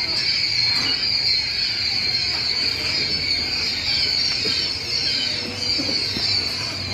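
Many quail chicks peeping together, a steady high-pitched chorus of overlapping chirps.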